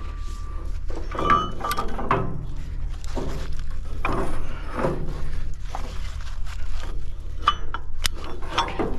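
A heavy steel shackle being handled against an excavator's steel arm, giving scattered metal clinks and knocks over a steady low hum.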